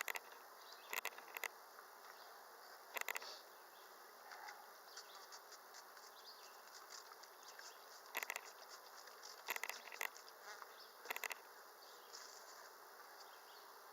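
Honeybees buzzing in a steady hum around an opened hive, broken by several short bursts of sharp clicks.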